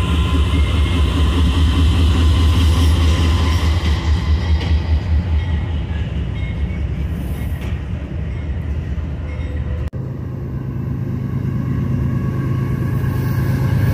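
Diesel freight locomotives running past close by: a loud, steady, deep engine rumble with the noise of the moving train over it. About ten seconds in the sound cuts abruptly to another passing train, whose rumble grows louder toward the end.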